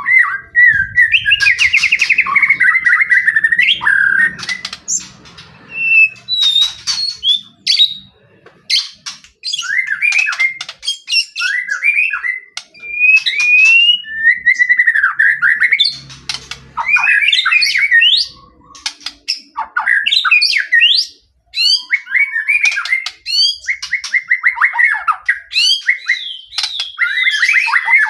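White-rumped shama (murai batu) in full, varied song: gliding whistled phrases, fast trills and harsh chattering notes, with sharp clicks between phrases and short pauses.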